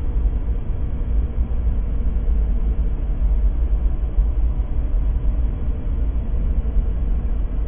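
Empty-room ambience: a steady low rumble with a faint hiss above it, unchanging throughout.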